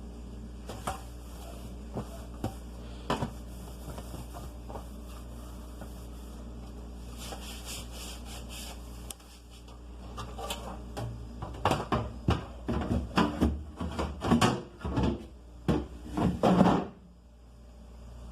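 Plastic refrigerator parts and containers being handled and knocked about during a fridge cleaning. At first there are scattered light clicks over a low steady hum. The hum stops about halfway, and a dense run of knocks and rattles follows, ending abruptly near the end.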